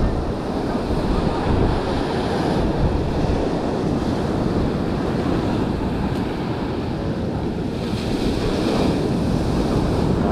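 Ocean surf breaking and washing up the beach in a steady roar, with wind buffeting the microphone.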